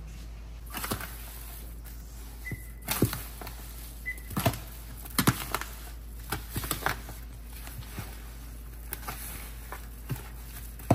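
A metal utensil knocking and scraping against a plastic container as cubed butter is mashed into flour and spices. The clicks and taps come irregularly, a few louder knocks among them.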